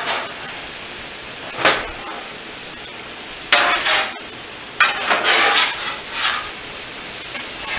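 Metal spatula scraping and clattering on a flat-top griddle's steel surface as chopped peppers and onions are turned, in several short bursts, over a steady sizzle.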